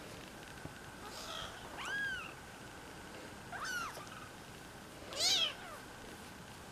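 Kittens about four weeks old mewing: a few short, high-pitched mews, each rising then falling in pitch, the loudest about five seconds in.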